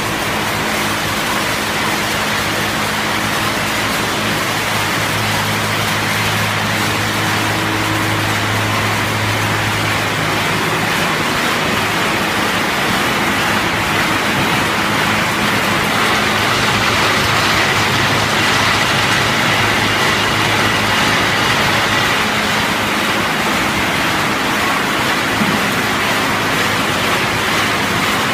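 Taiho optical color sorter and conveyor line running on cashew kernels: a steady machine hum under a continuous rushing hiss. The low hum fades about ten seconds in, while the hiss grows brighter.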